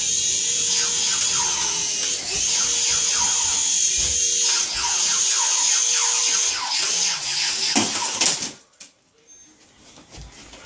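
Small electric toy helicopter's rotor motors whirring with a steady high-pitched buzz as it flies, wavering slightly in pitch. A knock comes near the end, and the motors cut off about eight and a half seconds in.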